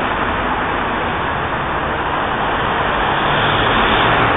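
Steady hiss and rumble of busy urban road traffic, growing a little louder near the end.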